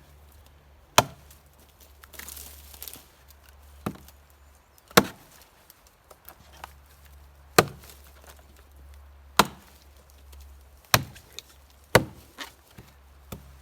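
Axe chopping into a thick log: about eight separate, sharp blows, irregularly spaced a second or two apart. The wood is fairly punky, soft with rot.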